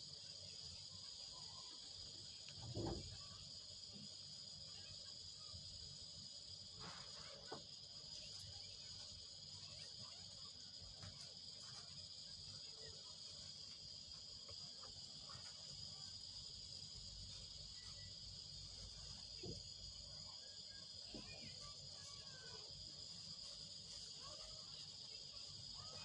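Near silence: a faint, steady high-pitched hiss, with one faint low thud about three seconds in.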